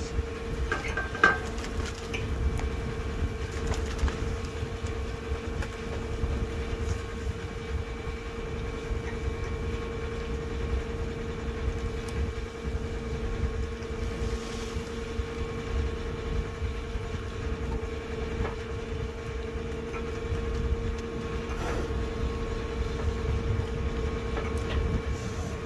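Farm seeding rig running steadily: a constant hum over a low rumble, with a few faint ticks.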